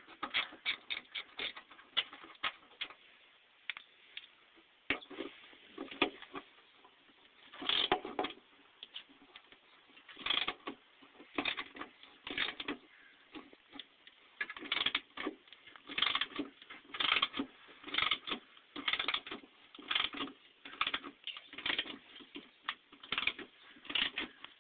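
Hand ratchet wrench clicking in short bursts, stroke after stroke, as the bolts holding the truck's old factory running boards are backed out. The clicks come quickly at first, then in bursts about once a second.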